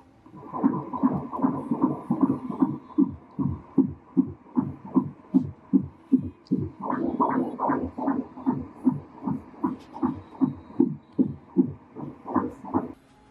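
An unborn baby's heartbeat picked up by ultrasound: rapid, even beats at about two and a half a second, a rate of around 154 beats a minute. It starts abruptly and cuts off suddenly near the end.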